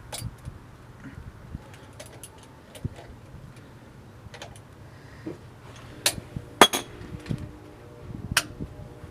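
Sparse metallic clinks and taps of hand tools on the brake caliper hardware while the lower caliper bolt is worked on. The sharpest strikes come about six and seven seconds in, over a steady low hum.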